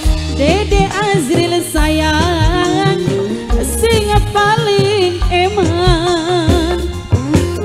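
Live dangdut band music: a woman sings a wavering, ornamented melody over bass notes and a steady drum beat.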